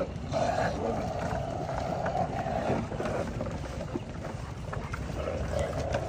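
A pack of street dogs crowding in to be fed, whining over one another in two long stretches, with scuffling and small knocks of bowls and paws on gravel.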